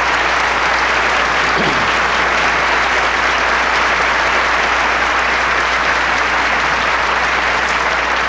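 Audience applauding, steady and unbroken.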